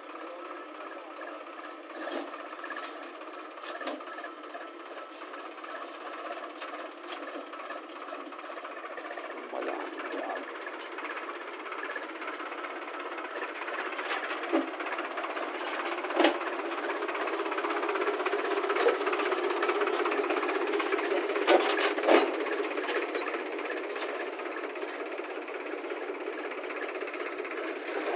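A machine or engine running steadily, growing somewhat louder partway through, with a few sharp knocks.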